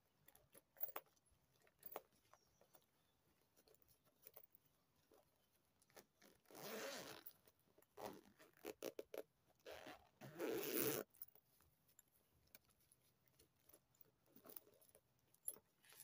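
Zipper of a quilted handbag being pulled, two strokes of about a second each, the second about three seconds after the first. Light taps and rubbing of fingers on the bag come between them.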